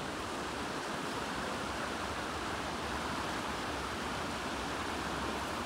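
Steady rush of a shallow river flowing over stones.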